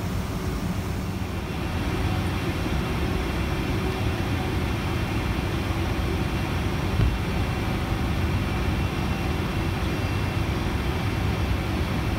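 Cabin noise inside a Rolls-Royce-powered Boeing 747-400 taxiing after landing: a steady low rumble from the engines, growing slightly louder a second or two in.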